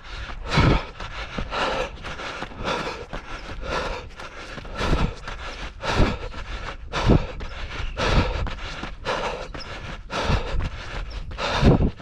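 A runner's footfalls and hard breathing in a steady running rhythm, with a heavier thump about once a second.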